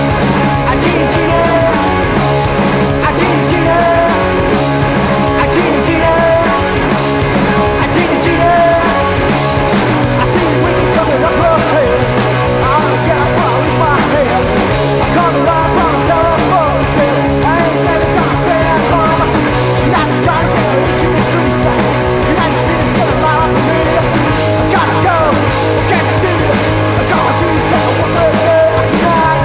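Punk-leaning rock band recording: electric guitars, bass and drums playing loud and steady.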